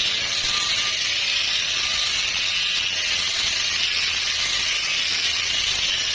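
A steady, even hiss that holds at one level throughout, with no pitch or rhythm to it.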